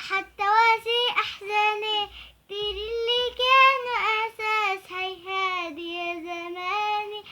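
A young girl singing an Arabic song unaccompanied, in a high voice, with held and gliding notes and short breaths between phrases.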